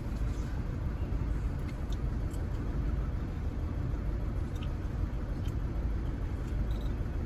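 Audi A3 diesel engine idling with a steady low rumble, heard from inside the cabin, running on three cylinders with a dead misfire. A scan reads the fault as a cylinder 4 injector circuit fault (P0204).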